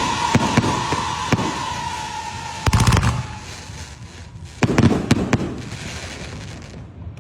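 Fireworks going off: rapid crackling pops over a steady whistle that fades out about three seconds in, with two louder bursts about three and five seconds in. The bangs then die away near the end.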